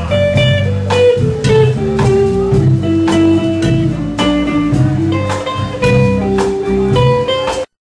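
Live blues band playing: electric bass and guitar over a steady beat of about two hits a second. The music cuts off abruptly near the end.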